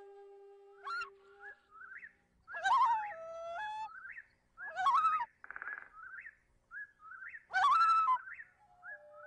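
Birdsong in the background soundtrack: short rising chirps around three louder warbling calls, with a brief trill between the second and third. A held flute-like note stops about a second and a half in.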